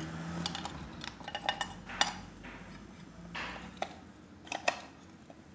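Scattered metallic clinks and light knocks of metal parts being handled as the end cover is fitted onto an electric radiator fan motor's housing.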